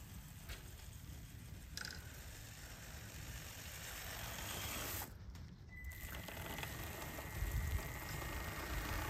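Traxxas TRX-4M mini crawler driving through soft snow on 3D-printed plastic tracks: the small electric motor and gears whirring and the tracks clattering, over a low rumble. A steady high whine comes in about two-thirds of the way through. The battery is running low in the cold.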